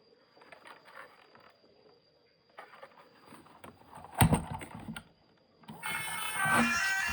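Scattered light clicks and taps, with one louder knock about four seconds in; music starts near the end.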